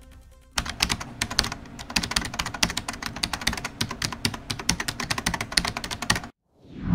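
Rapid computer-keyboard typing clicks, running for about six seconds and then stopping abruptly.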